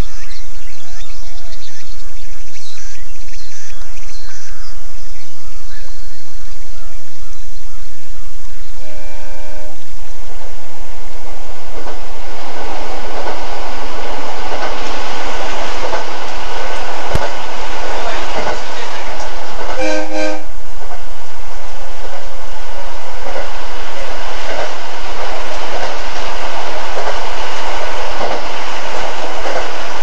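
Small birds chirp faintly at first, then an electric train on the Abukuma Express line sounds its horn in a short blast. Its running noise and wheel clatter on the rails build up and carry on, with a second short horn blast about ten seconds after the first. The sound is played back from a cassette recording.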